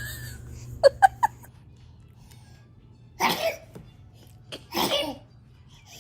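A baby sneezing twice, two short, loud, breathy bursts about a second and a half apart, after three quick little vocal squeaks.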